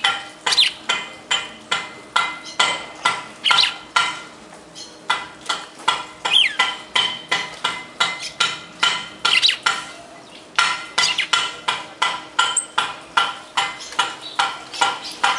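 Sharp, ringing clicks in a steady rhythm of about three or four a second, pausing twice, with a few short bird chirps among them.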